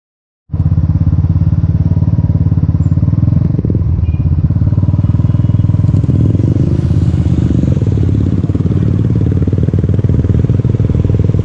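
Motorcycle engine running at a steady road speed, heard from the rider's seat as an even, rapid beat with road noise over it. It cuts in about half a second in, after a moment of silence.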